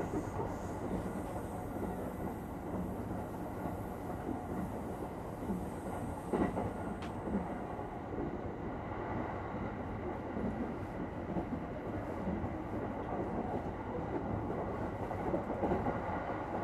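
Steady interior ambience of a Japanese electric commuter train car standing at a station with its doors open: an even hum of the car's equipment with a faint thin tone, and a single sharp knock about six seconds in.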